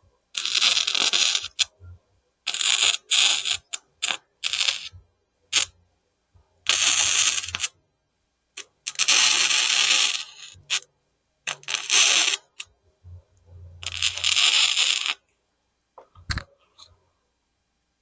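Flux-core wire welder arc crackling and sizzling in a series of short welds, about eight bursts of up to a second and a half each, with gaps between them.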